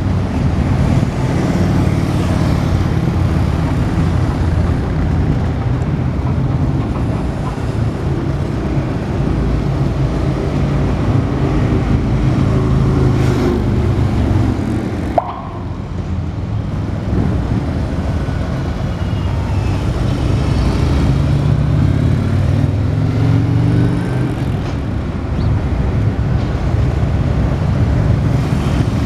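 Steady low engine rumble and road noise of slow-moving parade floats and their vehicles rolling past. A single short click about halfway through.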